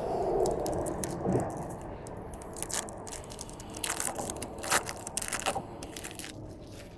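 A foil Magic: The Gathering booster pack wrapper being torn open and crinkled, a run of irregular sharp crackles.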